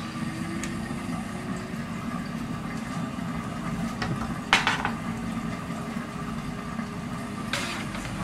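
Plastic and metal cookware clattering as the lid comes off the Thermomix Varoma steamer and the basket of cooked meat is handled, with one sharper clatter about four and a half seconds in and more near the end. A steady low appliance hum runs underneath.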